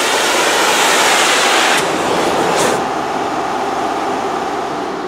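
Gas torch flame hissing steadily. The hiss drops away after about two and a half seconds, leaving a quieter hiss with a faint steady hum.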